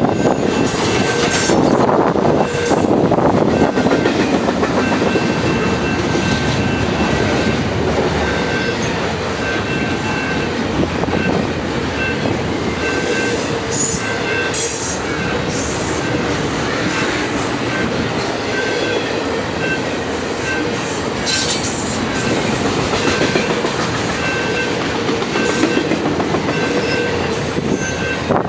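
A long Canadian Pacific double-stack container train rolling steadily past. Its steel wheels rumble on the rails with occasional clacks and a faint, intermittent high wheel squeal.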